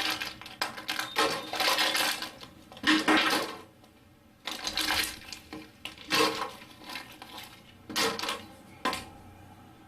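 Ice cubes clattering and clinking as they are dropped into a plastic container, in several separate bursts with short pauses between.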